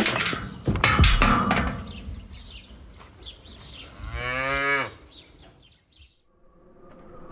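Sharp metal clanks as a steel rod and latch on a barn gate are worked in the first second or so, then a cow moos once about four seconds in, its call falling in pitch.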